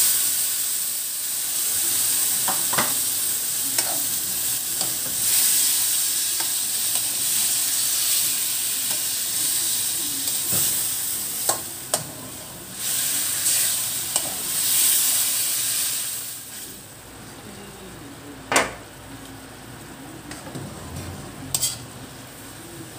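Soy-marinated chicken pieces sizzling loudly in hot oil in a wok as they are tipped in and stirred with a metal spoon, with the spoon clinking against the pan now and then. After about sixteen seconds the sizzle quietens sharply, leaving a few clinks, the loudest one soon after.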